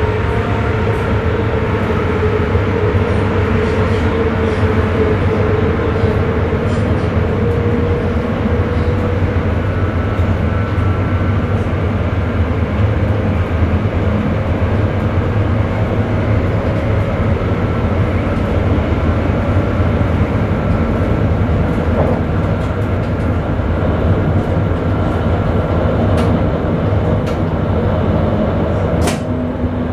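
Sprinter electric train running at speed, heard from the driver's cab: a steady rumble of wheels on rail with a motor hum that falls slightly in pitch over the first several seconds, and a sharp click near the end.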